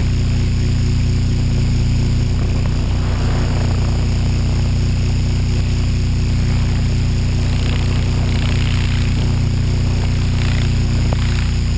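HK600GT RC helicopter's rotor and motor running steadily in flight, heard from the camera on board as a loud, even hum.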